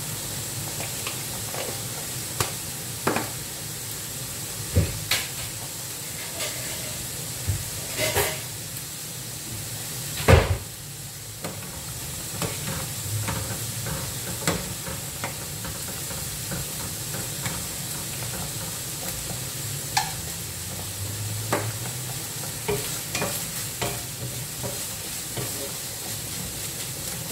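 Fried rice sizzling in a frying pan while a wooden spatula stirs and scrapes it, with scattered sharp knocks, the loudest about ten seconds in.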